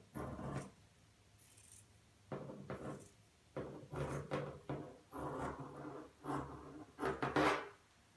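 Scissors cutting through woven carbon-fibre cloth in a series of about six separate cutting strokes.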